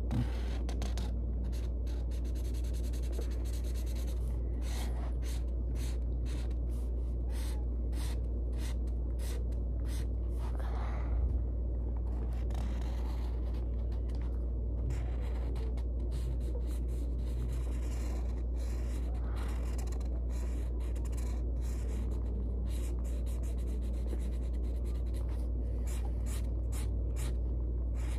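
A pen scratching across a squared-paper notebook page in many short, quick strokes as squares are filled in, over a steady low hum.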